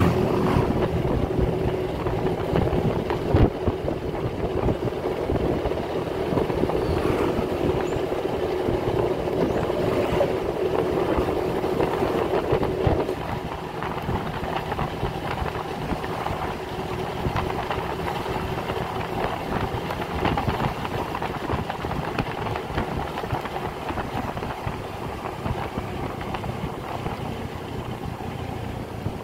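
Honda motor scooter riding in town traffic: steady engine running with road and wind noise. A steady whine over it stops about halfway through and the sound grows a little quieter.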